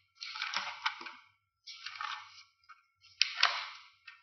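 Sheets of paper being handled and turned over, several rustling page turns in a row with small crackles, as a project is looked through.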